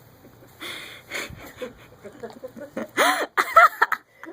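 Siberian husky's wheezy, hissing snore breaths while asleep. About three seconds in comes a louder, short high-pitched voice-like sound with a sliding pitch.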